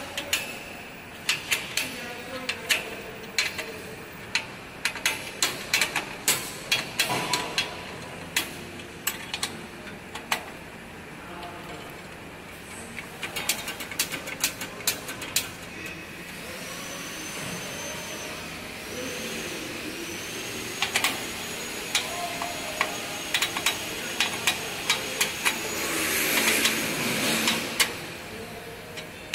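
Metal clicks and clinks of a hand tool working the bolts on the steel frame of a packing machine's tube feeding chute, in quick irregular bunches. From about halfway a steady hiss with a thin high whine comes in and grows louder near the end.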